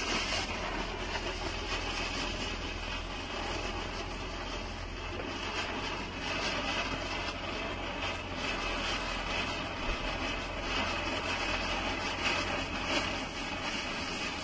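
A chakri (ground spinner firework) burning and spinning in a shallow puddle of rainwater: a steady hissing rush with crackling throughout, flaring up abruptly at the start.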